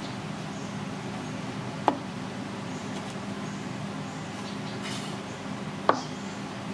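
A kitchen knife cutting through boiled duck eggs and striking a plastic cutting board: two sharp knocks about four seconds apart, over a steady background hum.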